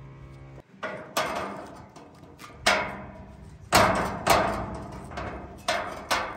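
A series of about eight sharp knocks, irregularly spaced, each with a short ringing tail; the loudest come near the middle.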